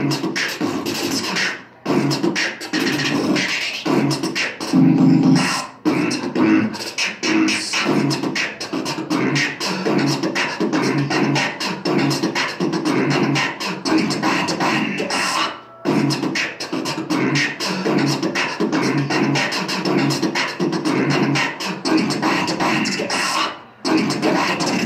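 Loud electronic music with a dense, driving beat and scratch-like vocal sounds, dropping out briefly a few times.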